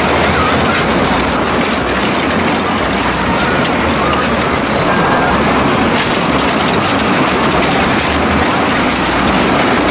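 A Himalaya-style carnival ride running, its sleigh cars rumbling and clattering steadily as they whirl around the circular track.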